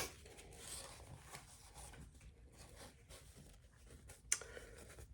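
Faint rustling and rubbing from a cross-stitch piece being handled and a backing being put behind it, with one sharp click about four seconds in.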